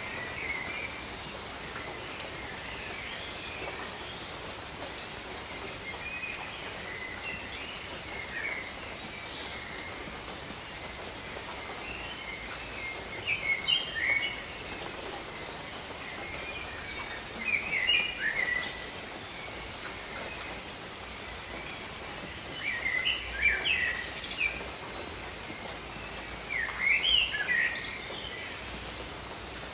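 Steady hiss of gentle rain falling, with a songbird singing short chirping phrases several times over it, in bursts that grow more frequent in the second half.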